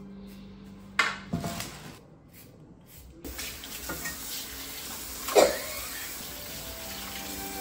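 Kitchen tap running into a stainless steel sink from about three seconds in while carrots are rinsed under it, with a sharp clatter against the sink about five seconds in. A couple of knocks come about a second in, before the water starts.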